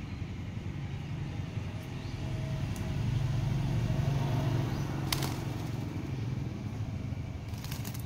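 An Alexandrine parakeet shaking out and flapping its wet feathers in a wire cage: one sharp rustle about five seconds in and a quick flurry of rustles near the end, over a steady low rumble that swells in the middle.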